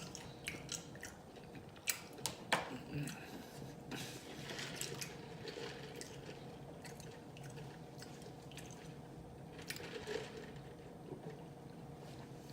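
Close-mouthed chewing with loud wet smacking and lip clicks, coming at irregular moments over a faint steady hum.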